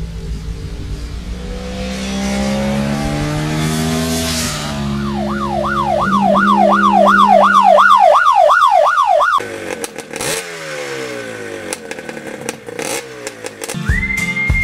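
Motorcycle engine accelerating, its pitch climbing steadily, then a fast rising-and-falling whine repeating about two or three times a second that cuts off suddenly about nine seconds in, followed by tones sliding downward.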